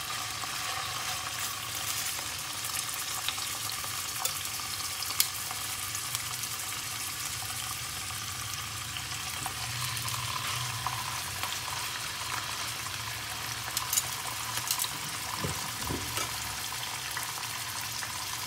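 Soy-marinated pork slices sizzling steadily in hot cooking oil in a nonstick frying pan, with a few sharp ticks over the sizzle.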